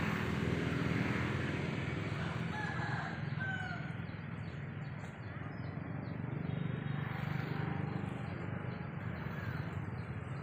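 Steady outdoor background rumble, with a few faint, short high chirps a few seconds in.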